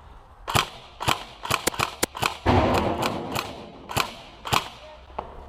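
Airsoft guns firing about ten sharp single cracks at irregular intervals, with a short rush of noise about two and a half seconds in.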